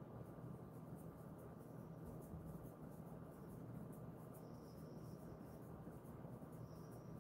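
Faint scratchy rubbing strokes through a dog's fur as it is massaged, coming at irregular intervals over a low steady room hum.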